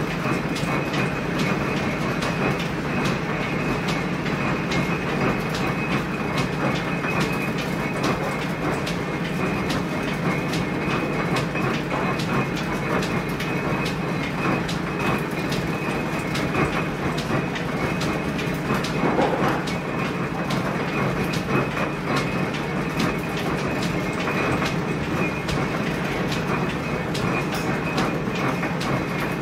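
A Victorian Enoch Rushton silk warping mill running as silk warp is wound and beamed off, giving a steady mechanical rattle of dense, rapid clicks.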